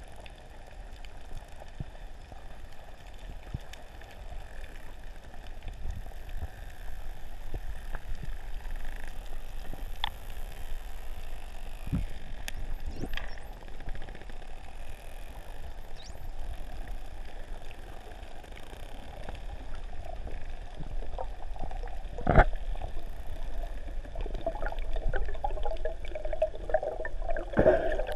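Underwater water noise: a steady low rumble and hiss with a few sharp clicks, the loudest about three-quarters of the way through, and a gurgling, bubbly sound building near the end.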